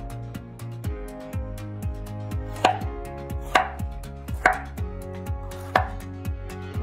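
Chef's knife chopping a green bell pepper on a wooden cutting board: four sharp knocks of the blade on the board, about a second apart, in the second half. Background music with a steady beat plays underneath.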